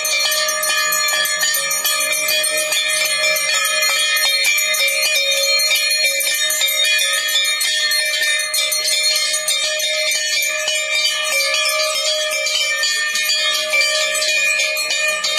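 Bells rung rapidly and without pause: a dense run of strikes over a steady, sustained ringing tone.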